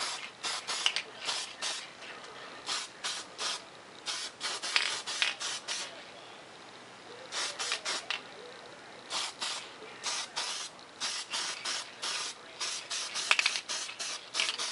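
Aerosol spray paint can sprayed in many short bursts, each a brief hiss, with a pause of a second or two about halfway through. It is laying a second coat of paint onto a foam model jet.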